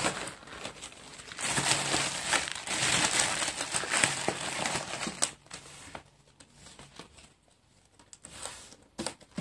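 Paper and cardboard scraps from a punched-out craft sheet rustling and crinkling as they are handled and cleared away, for about four seconds from a second in. After that come a few light taps of card on the table.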